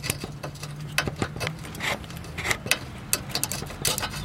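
Irregular small clicks and scrapes of a rubber transmission-oil cooler hose being twisted and worked off its metal pipe on a Honda Civic radiator by hand, over a steady low hum.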